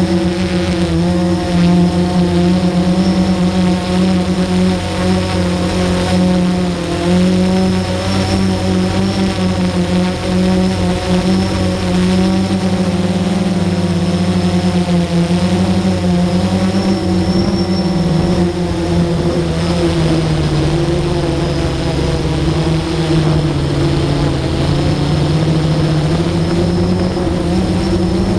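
Motor and propeller of a radio-controlled model aircraft, heard close up from its onboard camera: a steady pitched hum that wavers slightly and sinks a little lower about two-thirds of the way through.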